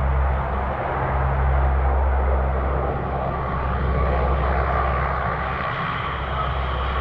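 Convair CV-580's turboprop engines running as it taxis: a steady low propeller drone under a thin turbine whine that grows stronger in the second half.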